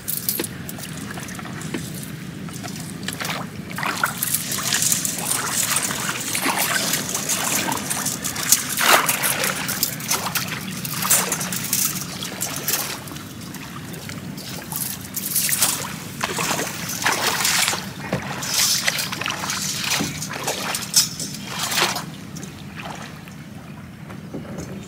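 Shallow floodwater splashing and trickling in irregular bursts, stirred while push-net fishing gear is handled in the water.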